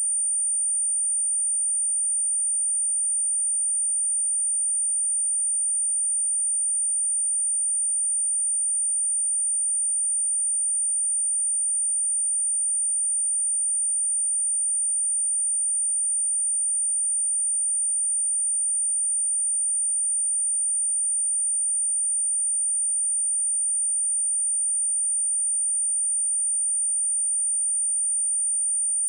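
A pure 9043 Hz sine-wave test tone: one steady, high-pitched whistle that holds without change. It is played to test speakers and headphones and to shake water and dust out of a speaker.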